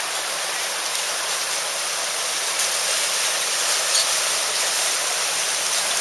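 Steady rush of a shallow stream pouring over rocks at a waterfall ford, a continuous hiss of running water.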